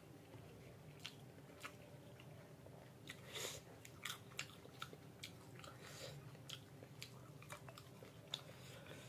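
Faint chewing and biting of food, with soft mouth sounds and irregular small crunchy clicks, a little louder about three seconds in.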